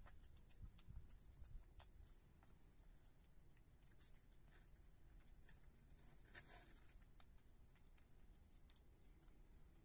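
Virginia opossum eating wet cat food and sour cream: faint, irregular wet smacking and chewing clicks, with a slightly longer slurp about two-thirds of the way through.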